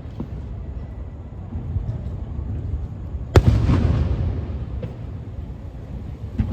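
Aerial fireworks shells bursting: one sharp loud bang about three seconds in, followed by a long rolling low rumble and echo, with a smaller crack near the end.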